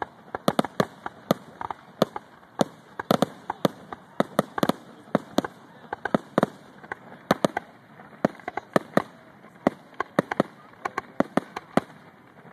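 Aerial fireworks shells bursting overhead: a rapid, irregular string of sharp bangs and pops, several a second, some clustered close together.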